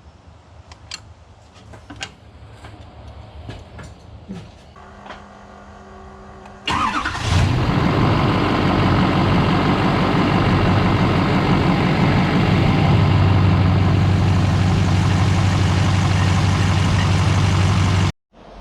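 Freshly swapped-in Duramax LMM 6.6-litre V8 turbo-diesel cranking for a couple of seconds, firing a little under seven seconds in, then running loud and steady at idle until the sound cuts off abruptly near the end. A few light clicks come before the cranking.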